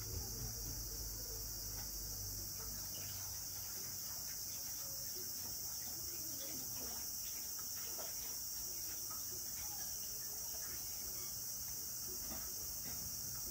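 A cat eating from a ceramic bowl, with faint irregular chewing clicks, over a steady high-pitched buzzing background.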